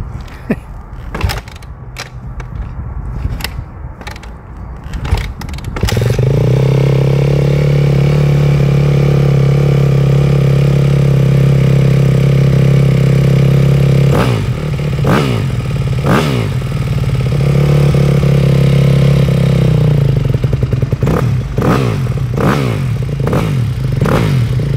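2008 Yamaha YZ250F four-stroke single dirt bike being kick-started: several knocking kicks, then the engine catches about six seconds in and idles, with a few throttle blips partway through and a quick run of revs near the end. The engine carries a bad noise that an experienced four-stroke mechanic called a classic timing chain tensioner sound.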